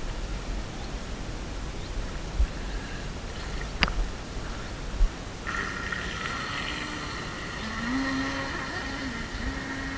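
High-pitched whine of a brushless RC speedboat motor (Skytech H101 with a Feilun FT009 propeller), starting suddenly about halfway through and holding steady as the boat runs away across the water, with a lower tone under it that rises a little near the end. Before it, only a low rumble and a few knocks.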